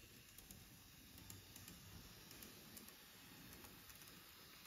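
Faint, irregular clicking of a model JNR KIHA 07 railcar's wheels running along the layout's track.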